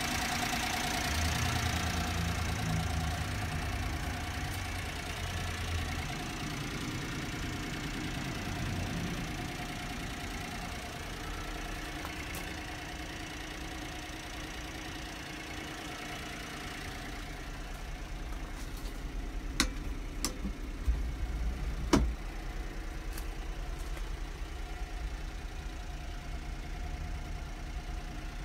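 Honda Acty kei truck's three-cylinder engine idling steadily, a little louder at first. A few sharp knocks come about two-thirds of the way through.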